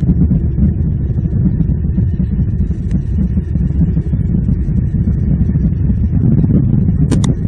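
Rain and wind on an outdoor camera's microphone: a steady low rumble, with a few short high chirps near the end.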